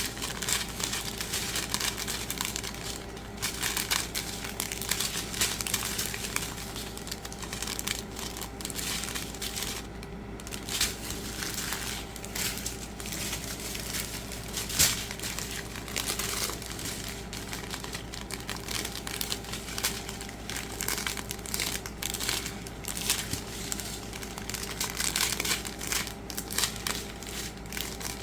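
Small plastic bags of diamond-painting drills crinkling as they are handled, with irregular crackles throughout.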